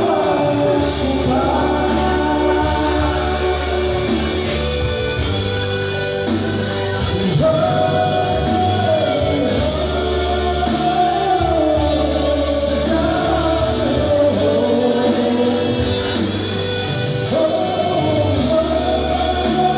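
A woman and a man singing a duet through microphones over amplified backing music, the woman's voice leading.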